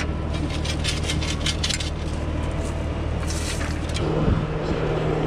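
An engine running steadily at idle, with a run of quick light clicks and scrapes during the first two seconds and a brief cluster again a little past three seconds in.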